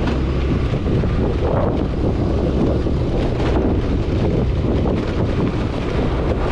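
Wind buffeting the microphone of a scooter-mounted camera while riding, steady throughout, over the low rumble of the scooter and its tyres on a rough dirt road.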